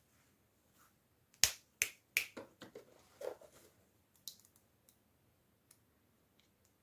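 A quick series of sharp clicks and snaps from toy packaging being opened and handled, the loudest three about a second and a half in, followed by lighter taps and ticks that thin out.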